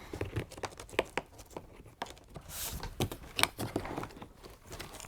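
Scattered clicks and knocks with a brief rustle about two and a half seconds in: hands working packaging lock pieces loose from the bottom of a cardboard shipping box.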